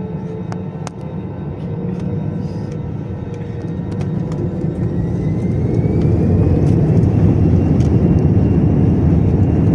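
Airbus A320 jet engines spooling up for takeoff: a steady low rumble under a whine that rises in pitch about four seconds in as the sound grows louder, with a few light clicks.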